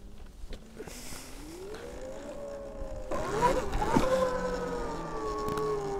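Surron electric dirt bike's motor whining, rising in pitch as it pulls away, then a steady, slowly falling whine at speed with wind and tyre noise coming in about three seconds in.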